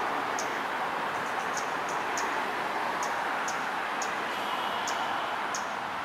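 Male scarlet-backed flowerpecker giving its staccato clicking call: short, sharp, high ticks at about two a second, irregularly spaced and sometimes doubled, over a steady background hiss.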